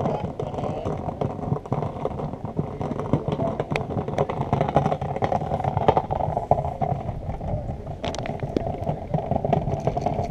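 Close handling noise, with cloth and bag rustling and knocking against the camera, over a steady muffled rumble.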